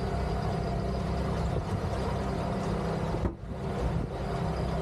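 Boat engine running steadily at trolling speed, with a brief dip in level a little over three seconds in.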